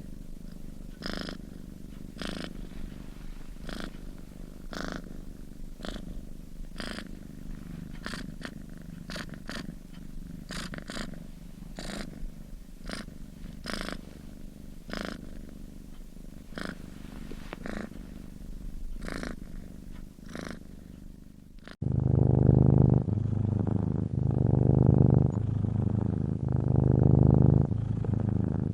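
Sleeping domestic cat snoring, a rhythmic rasp on each breath about once a second. About 22 s in it cuts abruptly to a louder, deeper snore with slower pulses.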